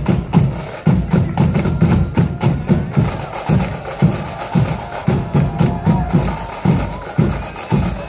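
Marching flute band playing, the bass drum and snare drums beating a steady march at about two beats a second, with flutes faint beneath the drums.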